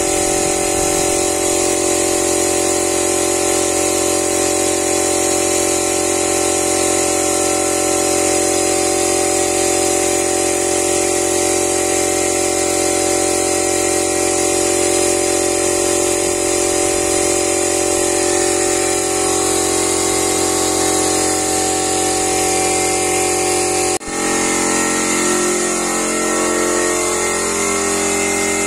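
Small portable electric air compressor running steadily, with the hiss of a spray gun spraying PU polish. Near the end the sound dips briefly, and afterwards the compressor's hum shifts and wavers.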